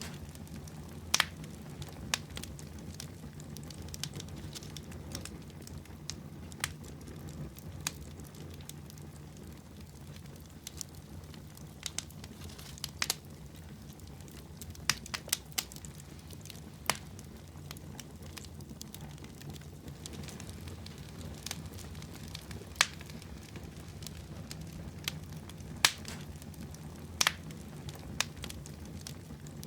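Campfire crackling: irregular sharp pops and snaps, a few much louder than the rest, over a steady low background.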